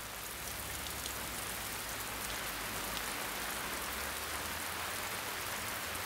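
Steady rain falling, an even hiss of drops.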